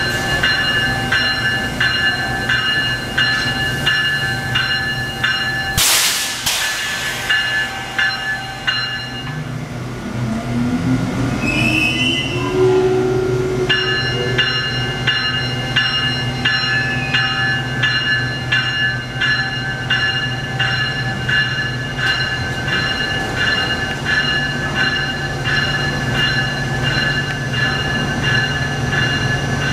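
Amtrak ACS-64 electric locomotive moving off slowly at low speed over a steady low hum of its blowers, with its bell ringing about twice a second. A short loud air hiss comes about six seconds in. From about ten seconds its traction motors give a rising whine as it pulls away, and the bell stops briefly, then starts again.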